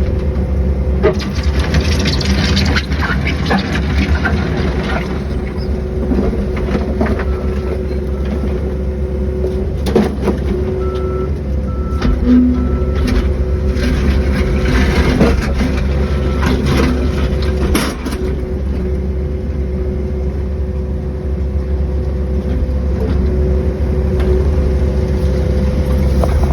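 Small excavator's engine running steadily, with scattered sharp knocks and scrapes from the machine working.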